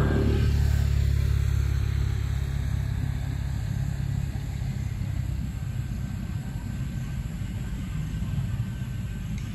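A steady low rumble, loudest in the first second or so and easing slightly after.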